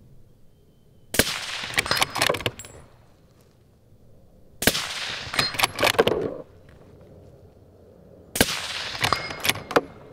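Suppressed Bergara B14 HMR bolt-action rifle in 6.5 Creedmoor fired three times, about three and a half seconds apart. Each shot is followed by quick metallic clicks as the bolt is worked.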